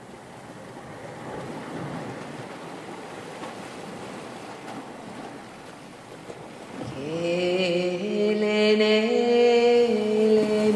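Ocean surf washing onto the beach. About two-thirds of the way in, a voice begins singing long, held, wordless notes over the waves, stepping up and down in pitch.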